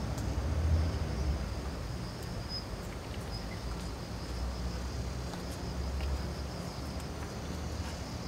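Outdoor ambience: a steady high chirring of insects over a low rumble that swells and fades.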